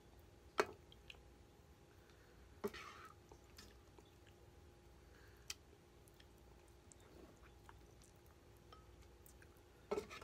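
Metal ladle clinking against the pot and ceramic bowl while kimchi hotpot is served, with soft wet sloshes of broth; a few sharp clinks spaced a couple of seconds apart.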